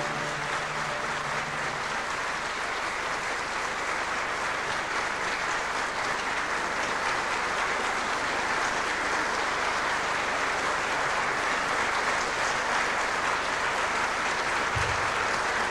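Theatre audience applauding steadily, with the last chord of the music dying away in the first second.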